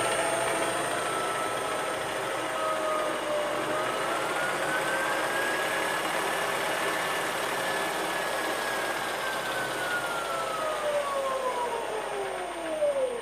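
Toyota Prius hybrid transaxle spinning under electric motor power, with a gear-noise hiss and a motor whine that climbs in pitch a few seconds in, holds, then falls away steeply near the end as it slows. The gearbox is likely running with no oil in it.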